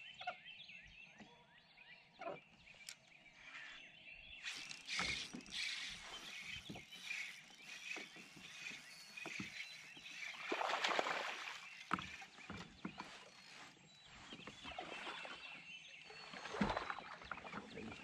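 Birds chirping. About four seconds in, a rush of water moving against a kayak takes over, with scattered knocks and bumps on the hull.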